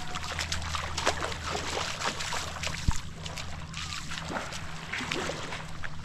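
Water sloshing and splashing in many short bursts over a steady low motor hum.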